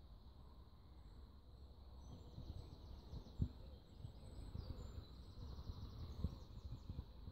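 Faint early-morning riverside ambience: small birds twittering and a high rapid trill over a low outdoor rumble, with a few dull low thumps, the loudest about three and a half seconds in.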